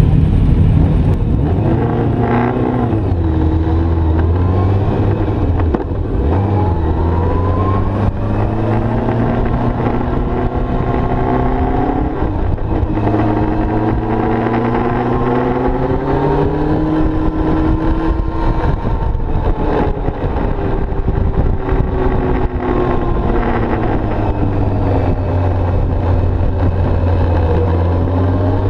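Sport motorcycle engine heard onboard at track speed, its revs climbing and dropping repeatedly through the gears.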